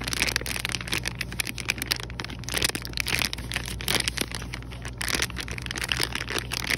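Soft plastic packaging of a pack of wet wipes crinkling and crackling irregularly as it is squeezed and turned over in the hand, over a steady low hum.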